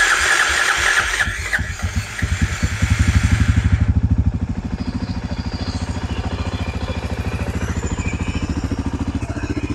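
Suzuki DR350's single-cylinder four-stroke engine cranked on the electric starter with the choke on. It catches about a second or two in, runs up briefly and settles into a steady, even idle by about four seconds: a cold start on choke, running again after its carburetor was cleaned.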